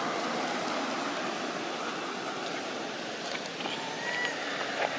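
Steady rushing road noise of a passing vehicle, slowly fading, with a faint short high chirp about four seconds in.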